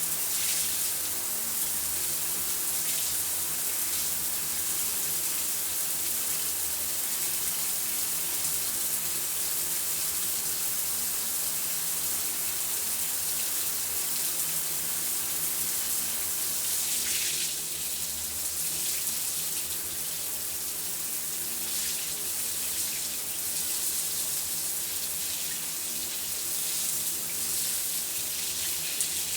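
Shower running: a steady spray of water with no break. About 17 seconds in the hiss thins a little, as if the stream shifts or is partly blocked.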